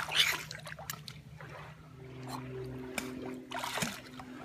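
Shallow lake water splashing and sloshing, with a loud splash right at the start and another about three and a half seconds in. A steady low hum runs underneath and drops in pitch about two seconds in.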